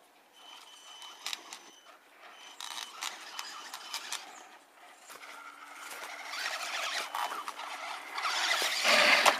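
Electric RC off-road cars driving over dirt and gravel: motor whine with tyres scrabbling and scraping on the ground, growing louder near the end as one truck drives up close.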